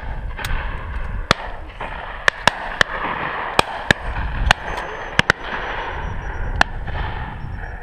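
Distant shotgun shots from other guns on a pheasant drive: about a dozen short, sharp cracks scattered at uneven intervals over a steady rushing background.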